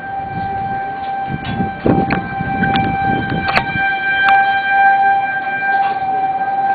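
Outdoor tornado warning siren sounding one steady, unbroken tone. A low rumble on the microphone comes in the first four seconds, and two short clicks come midway.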